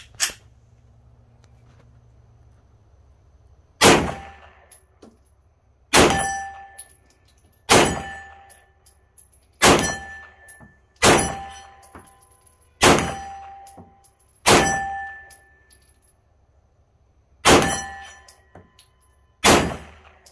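A Ruger P85 9mm pistol fired nine times, slow aimed shots one and a half to three seconds apart, the first about four seconds in. Most shots are followed by the brief ring of a steel plate target being hit.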